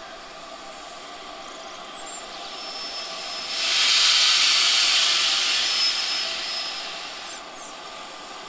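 Steam locomotive letting off steam: a loud hiss comes in suddenly about halfway through, holds for a few seconds, then fades away.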